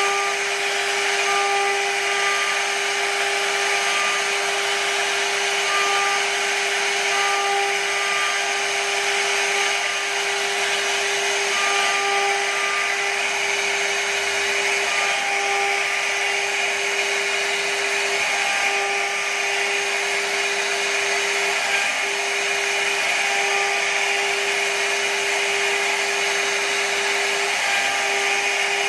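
CNC router spindle running with a steady whine while its small carving bit cuts into a wooden panel, with a constant hiss of cutting wood.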